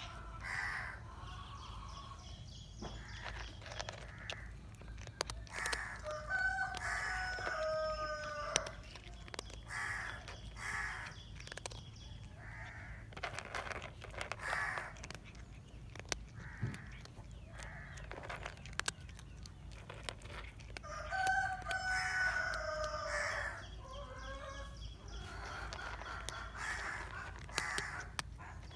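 A cat crunching dry kibble, heard as a scatter of small clicks, while birds call over and over; the loudest are two longer drawn-out calls, about a quarter of the way in and again about three quarters through.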